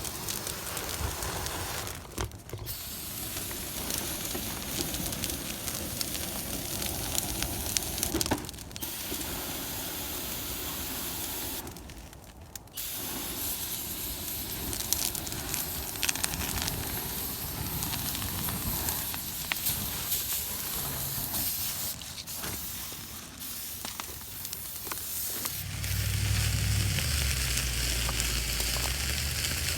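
Bonfire burning hard, flaring on brake cleaner and transmission fluid: a steady rushing hiss with many small crackles. A low rumble joins near the end.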